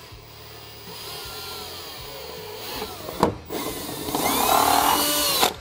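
Power drill with a 1/4-inch bit drilling holes through the glove-compartment panel, its motor whine rising and falling in pitch. It is loudest in the last second or so and stops suddenly near the end.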